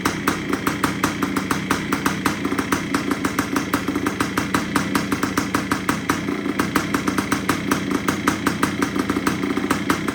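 Single-cylinder two-stroke engine of a 1973 Yamaha CT3 idling steadily with even firing pulses, freshly rebuilt and still in its break-in period.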